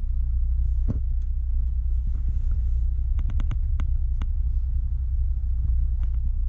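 Heavy diesel engine running close by: a steady, low throbbing rumble, with a few sharp ticks over it.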